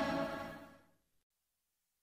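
The end of a music track fading out over about the first second, then dead silence.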